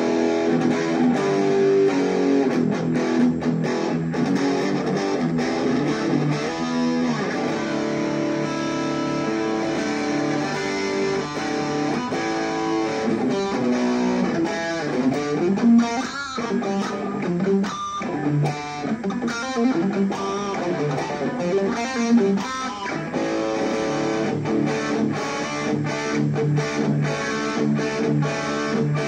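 Electric guitar played through an Overdrive EA-15 practice amp with the gain turned up to about three o'clock, giving an overdriven tone. He plays chords and riffs, with a run of single notes with vibrato about halfway through.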